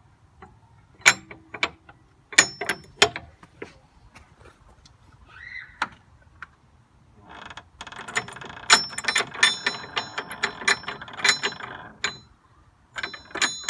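Metal parts of an ornamental thumb gate latch being handled and worked: a few sharp clicks and clinks at first, then a few seconds of dense metallic clicking and rattling in the second half, and a few more clicks near the end.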